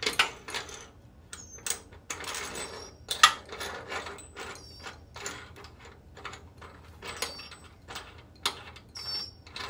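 Hand ratchet clicking in irregular runs as it turns the nut on a threaded-rod bushing press, drawing a Delrin bushing into its mount. Birds chirp briefly a few times.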